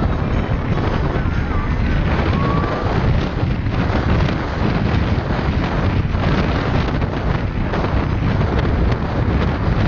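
Wind buffeting the microphone, heavy and rumbling, over the steady road and engine noise of a car driving at speed.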